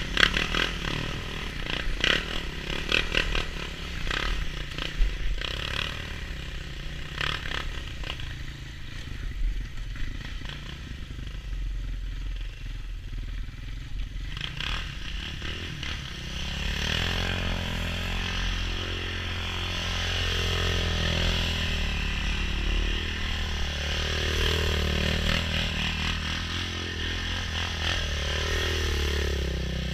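ATV engines running: the first half is rattling and scraping as the quad rides over a rough snow trail; from about halfway a steady low idle is joined by another quad's engine revving up and down over and over as it circles.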